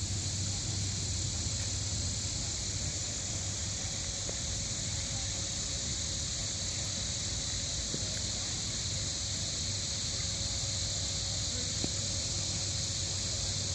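Steady outdoor street background: a constant high hiss over a low rumble, with no distinct events.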